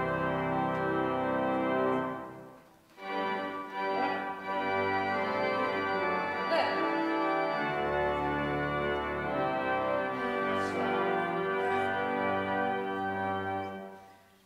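Organ playing slow, held chords. One chord dies away about two and a half seconds in, then a new run of sustained chords fades out near the end.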